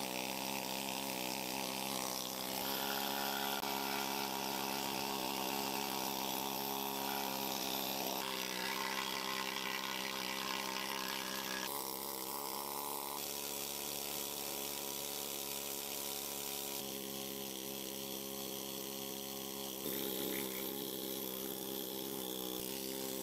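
Pneumatic needle scaler hammering against the frame of an old Beaudry power hammer, chipping off layers of old paint: a steady rapid buzz whose pitch shifts abruptly every few seconds.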